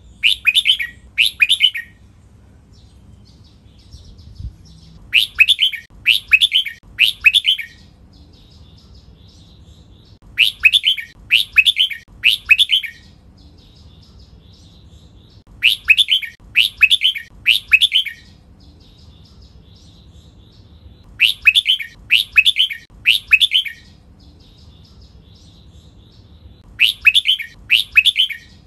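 Red-whiskered bulbul singing short loud phrases of three clear notes, each falling in pitch, repeated about every five seconds, with faint twittering between the phrases.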